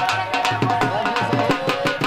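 Drum beaten in a quick, steady rhythm, about six or seven strokes a second, with a wavering melody running above it.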